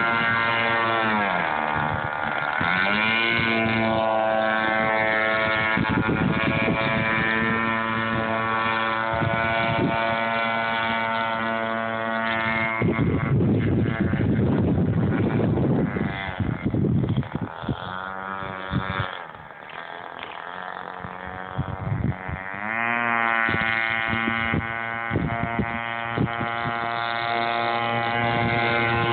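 Radio-controlled model boat's motor running hard, its whine dropping in pitch and climbing back as the throttle is eased and reopened, once near the start and again about two-thirds of the way through. A stretch of rushing noise comes in the middle.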